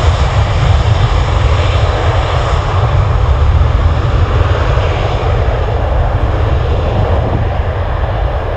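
Airliner engines, a loud steady rumbling roar that eases slightly near the end.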